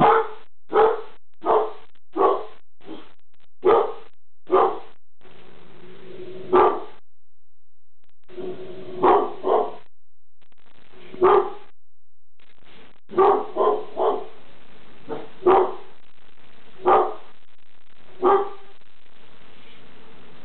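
Labrador barking at something: about fifteen loud single barks spaced a second or so apart, some in quick runs of two or three, with a short lull a third of the way through.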